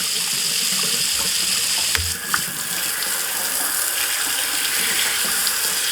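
Tap water running steadily into a sink and splashing over a rechargeable LED work light held under the stream.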